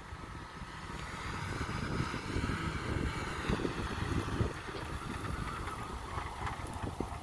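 Suzuki Samurai driven fast under power, its engine note swelling from about two seconds in and easing off after about four and a half seconds.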